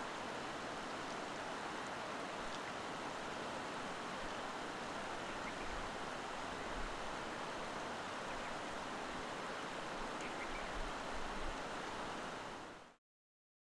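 Steady rushing of flowing water, an even outdoor hiss with no speech, cutting off suddenly near the end.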